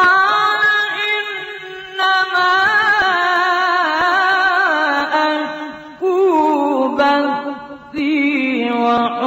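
A solo voice chanting an ornamented, wavering melody with no instruments, in several phrases that step down in pitch near the end.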